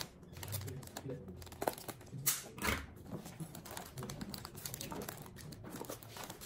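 Bouquet wrapping paper rustling and crinkling as it is handled, with a few short, sharper crinkles about two seconds in.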